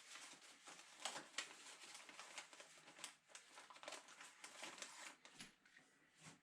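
Faint, irregular rustling and crinkling with small clicks: a wiring loom and its plastic tubing being handled while a tube is worked onto the wires.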